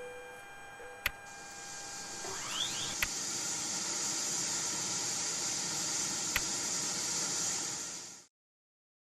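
A steady hiss that swells up over the first couple of seconds, with a few sharp clicks and a brief rising chirp, then cuts off suddenly near the end.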